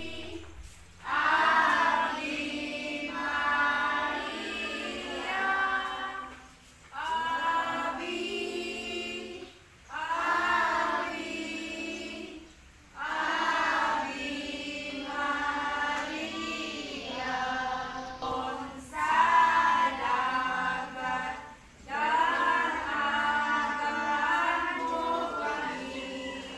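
A group of children and women singing a hymn together, in phrases of a few seconds with short breaks between them.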